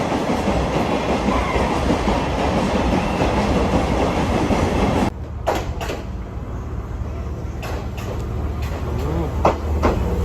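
Electric train running past with a dense rumble of wheels on rail. About halfway through, the sound drops abruptly to a quieter low hum with a few sharp clicks.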